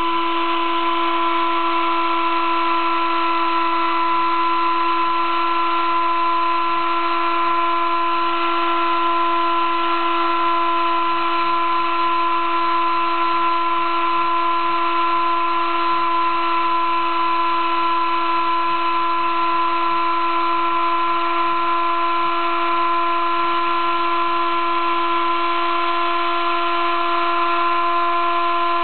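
Sable-2015 desktop CNC mill's spindle running with a steady whine of several even tones as a 20-degree V engraving cutter cuts lettering into acrylic board.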